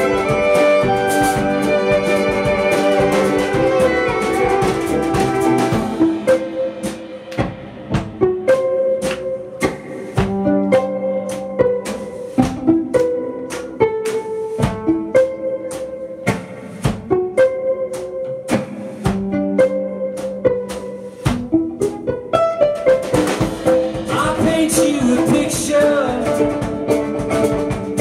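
Solo violin: for about the first six seconds it is bowed in long held notes, then it is plucked pizzicato while held like a guitar, short notes at a steady pulse. A singing voice comes in over the plucked violin in the last few seconds.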